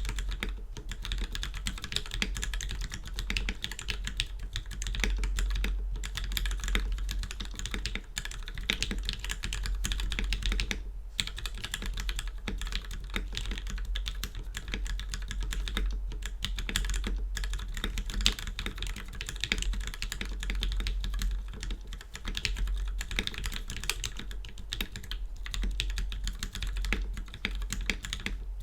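Steady, fast typing on a Percent Studio polycarbonate Canoe 65% mechanical keyboard with lubed and filmed Gateron Ink Black linear switches on a stainless steel plate: a dense run of keystroke clacks with a short pause about eleven seconds in. A steady low hum runs underneath.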